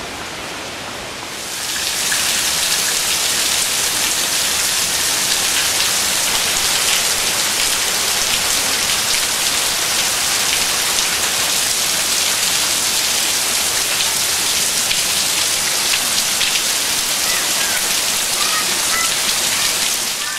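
Heavy tropical rain pouring down on palm fronds and lawn: a steady dense hiss full of drop ticks. It steps up loudly about a second and a half in, after a quieter, windier stretch.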